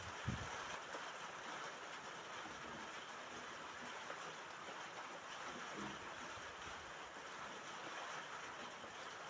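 Rain falling steadily on a roof, an even patter with no break. A short low thump sounds just after the start.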